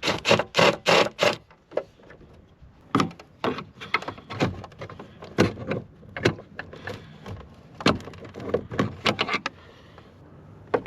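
Sharp clicks and knocks of hand work on a truck side mirror's housing while it is being worked loose. A quick run of loud clicks comes in the first second and a half, then scattered knocks follow.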